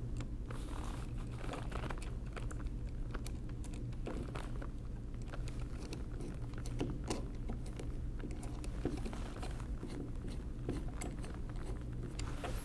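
Screwdriver turning small screws into a bracket on the frame of a 1920s Monroe model K mechanical calculator: irregular light metal clicks and scrapes.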